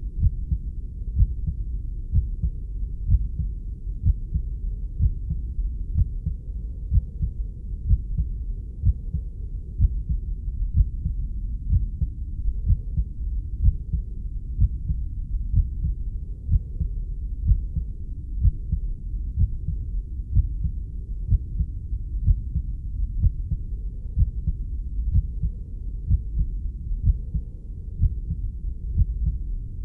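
A heartbeat beating steadily, about one low, muffled thud a second, over a continuous low rumble.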